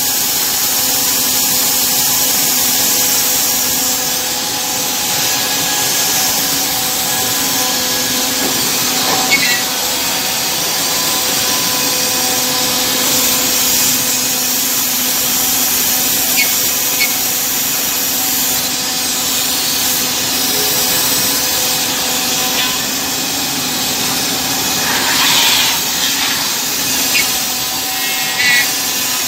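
Woodmaster CNC router-bit contour cutter milling scroll-shaped parts out of stacked wooden boards: a steady high-speed spindle whine over the hiss of the bit cutting through wood. A few brief knocks come through along the way.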